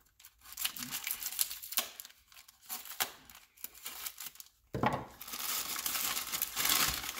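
Packaging of body-lift spacers crinkling and tearing as it is opened by hand: scattered crackles at first, then louder, continuous crinkling from about five seconds in.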